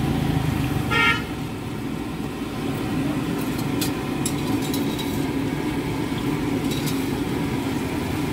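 Steady street traffic rumble with a short vehicle horn toot about a second in. A few light clicks follow later.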